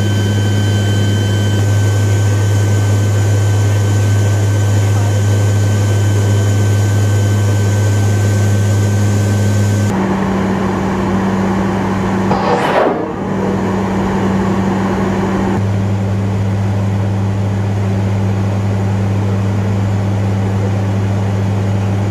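Propeller aircraft's engines and propellers droning steadily, heard inside the cabin, with a brief rushing noise about halfway through.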